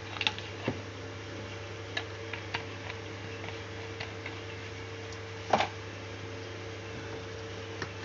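Steady low electrical hum with a faint steady tone above it, and scattered light clicks and ticks. The loudest click comes about five and a half seconds in.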